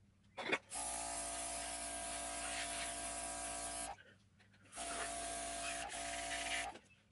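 A small electric motor running steadily in two spells, switched on and off by hand. A short click comes about half a second in, and the motor starts just after. It stops about four seconds in, starts again under a second later and stops near the end.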